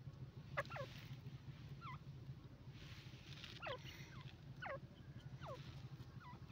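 Grey francolin giving soft, short squeaky calls, each note sliding down in pitch, single or in quick pairs about every second, over a steady low hum.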